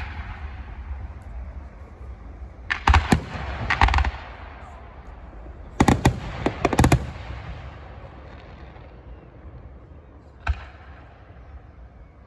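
Fireworks exploding: a cluster of rapid sharp bangs about three seconds in, another about six seconds in, and a single bang near the end, each trailing off in echo over a low rumble.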